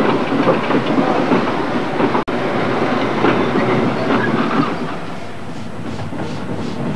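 Steam train running on the rails, with a rhythmic clatter of wheels over the track. Near the end, a steam locomotive's exhaust beats come through at about three a second as it works.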